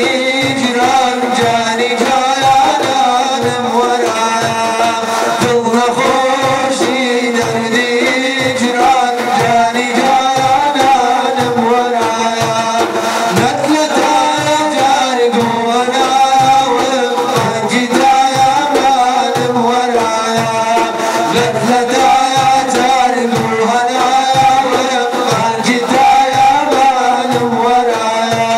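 Male voices singing a devotional mawlid song in praise of the Prophet, accompanied by the steady beat of two large daf frame drums.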